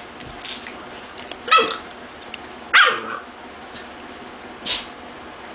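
Two pit bulls, one a puppy, play-barking at each other while they wrestle: three short, high barks about a second and a half apart, the second dropping in pitch and the last rougher and unpitched.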